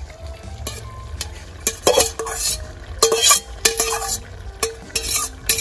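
A metal spatula scrapes and knocks against a stainless steel bowl in several quick strokes, some leaving a short metallic ring, as sliced vegetables are scraped into a hot pot. A faint frying sizzle runs underneath.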